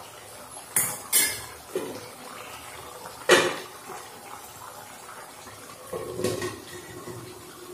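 A metal ladle clinks against an aluminium cooking pot several times, the loudest knock about three seconds in. About six seconds in, a metal lid is set on the pot with a clatter and rings briefly.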